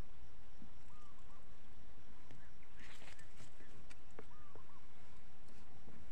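A wild bird repeats a short two-part arched call about every three seconds, over a steady low rumble. A brief crackling rustle with a few clicks comes just before the middle.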